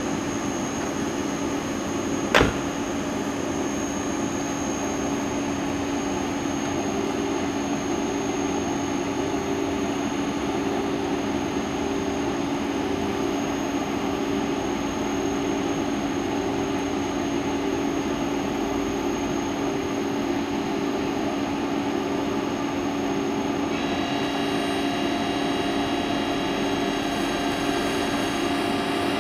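Bombardier TRAXX (Class 185) electric locomotive standing with its auxiliaries running: a steady electrical hum with a pulsing drone from the cooling blowers. There is a single sharp knock about two seconds in, and a higher whine of several notes joins in near the end.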